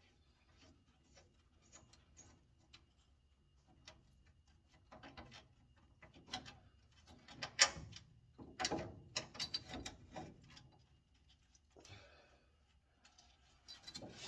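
Scattered metallic clicks and knocks of a hand wrench and bolts being worked loose under a car, busiest in the middle, with the loudest knocks about seven and a half and eight and a half seconds in.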